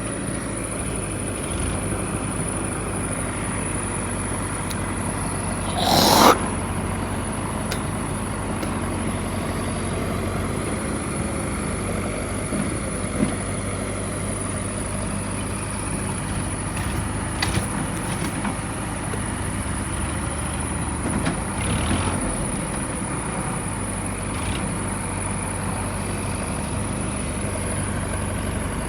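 Backhoe loader's diesel engine running steadily under digging work, with a brief louder scrape or squeal about six seconds in and a few light knocks later.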